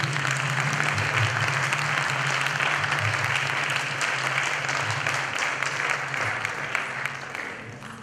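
Audience applauding, a steady patter that fades out near the end, over a low steady hum.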